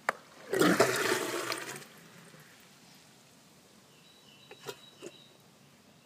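RIDaDOO dog waste disposal unit flushing: a click, then about a second of water rushing down through the funnel's drain, much like a toilet flush. A few small clicks follow near the end as the side T-handle is worked.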